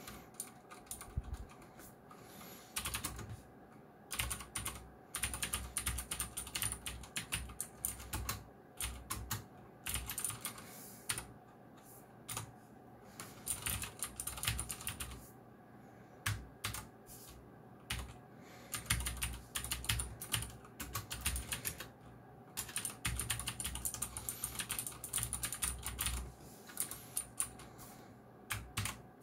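Fast typing on a Geekstar x Deck Hassium Pro 108 mechanical keyboard with clicky blue switches: runs of rapid key clicks broken by short pauses.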